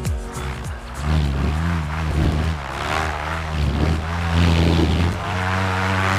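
Paramotor's two-stroke engine and propeller revving, the pitch swinging up and down as the throttle is worked during a forward launch, then held steady at high power about five seconds in.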